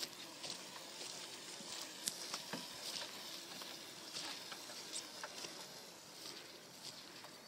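Footsteps crunching and rustling through dry grass and heath, about two a second, with small crackles in between.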